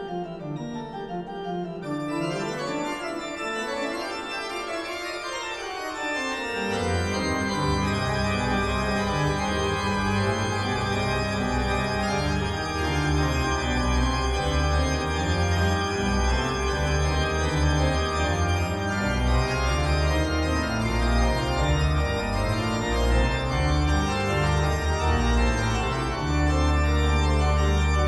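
Pipe organ playing a many-voiced piece. About six seconds in, deep pedal bass notes join the upper voices and the sound grows louder. Near the end it settles on a loud held chord over deep bass.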